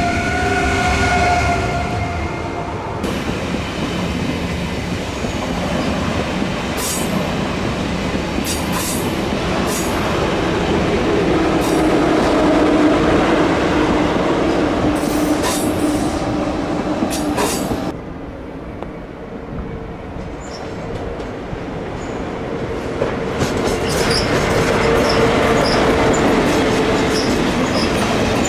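Deutsche Bahn ICE high-speed trains rolling past at a station, with wheel squeal and sharp clacks of wheels over rail joints. The sound changes abruptly twice, a few seconds in and about two-thirds of the way through, as one passing train gives way to the next.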